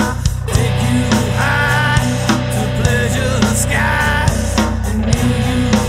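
Rock music backing track with a steady drum beat and a singing voice.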